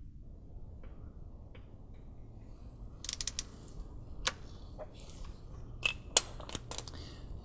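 Small hand ratchet with a 4 mm Allen bit clicking as it loosens the small hex bolts holding an engine's crankshaft position sensor. There is a quick run of clicks about three seconds in, then scattered single clicks, the sharpest a little after six seconds.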